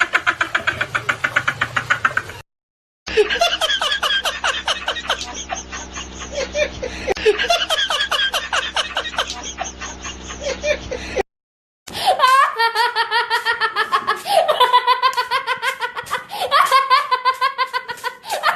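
High-pitched laughter in rapid repeated pulses, cut off abruptly twice by short gaps of silence.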